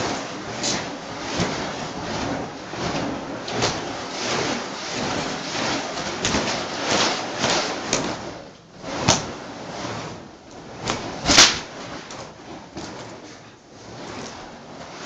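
A pair of burning fire whips swung through the air, the flames whooshing in repeated swells. Two sharp cracks come about nine and eleven seconds in, the second the loudest.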